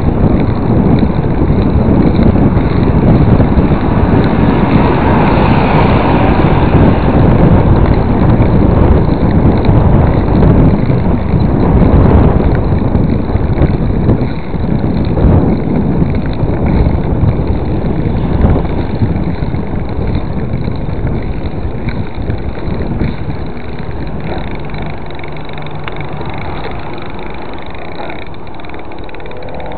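Wind rushing over the camera microphone of a moving mountain bike, with low road and tyre rumble. The noise is loud at first and eases off through the second half.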